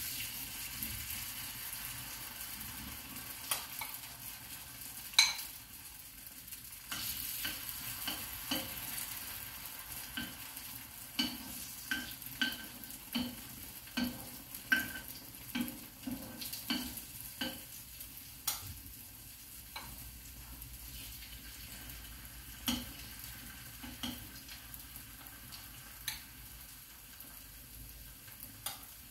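Grated-potato draniki batter sizzling in hot oil in a frying pan as spoonfuls go in, with a metal spoon clinking against the bowl and pan, often one or two clinks a second. The sizzle is strongest over the first several seconds.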